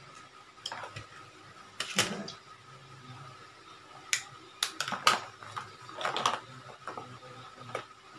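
Close handling noise of small objects in the hands: irregular sharp clicks and rustles, loudest about two seconds and about five seconds in.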